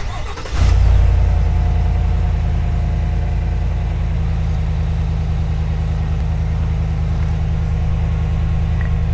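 Chevrolet Silverado 1500's 6.2L V8 on its factory stock exhaust, cranking briefly and catching about half a second in, then flaring and settling into a steady, loud idle.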